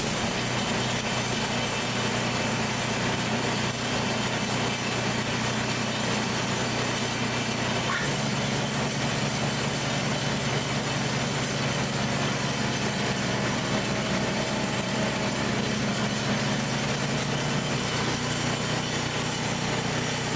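Gas snow blower's 302cc four-stroke engine running steadily, its note shifting about eight seconds in and again near the end.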